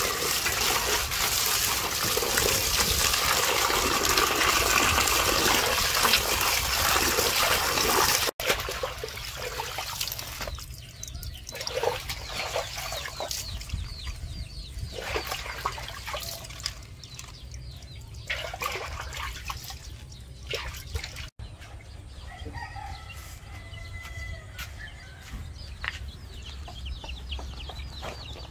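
Water pouring into a metal bowl and splashing as hands rinse lettuce and greens. After about eight seconds it gives way to quieter rustling and squeaking of wet leaves. Chickens cluck, and a rooster crows near the end.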